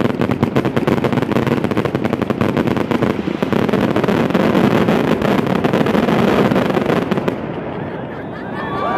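Fireworks barrage: a rapid, dense run of bangs and crackles. It stops about seven seconds in, leaving a duller, lower noise.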